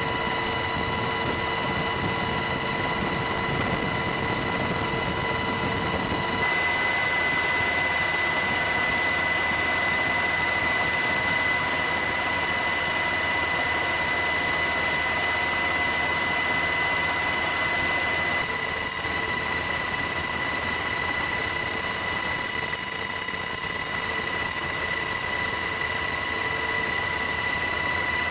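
Helicopter noise heard from on board: a steady rushing sound with a high, multi-toned turbine and gearbox whine over it. The mix of tones changes abruptly twice, about six seconds in and again about eighteen seconds in.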